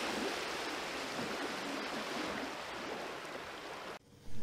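Steady rushing-water sound like surf or a stream, laid over the logo intro, cutting off abruptly about four seconds in.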